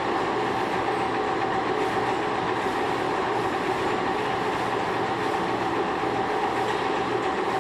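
Machining equipment running steadily, a continuous mechanical drone with a few held steady tones and no breaks.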